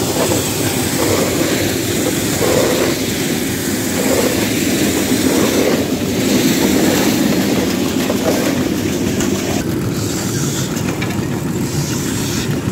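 Mobile scraper-type grain loader running steadily, its chain-and-paddle feeders and elevator rattling as barley is fed into it.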